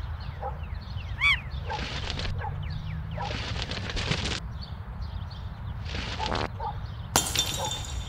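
Cartoon soundtrack effects: short bird-like chirps and whistles, a few hissing bursts, then a sharp crash of breaking glass with ringing near the end, over a steady low rumble.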